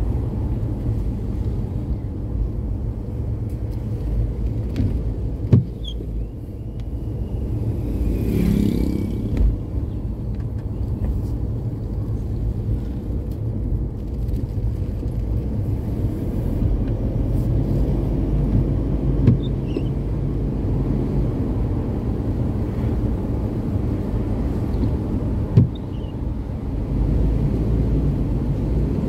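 Steady low rumble of a car driving, engine and tyre noise together, with two sharp knocks, one about five seconds in and one near the end.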